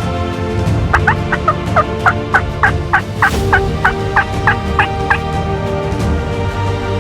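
A series of about fourteen quick turkey yelps, roughly three a second, starting about a second in and ending near five seconds, over steady background music.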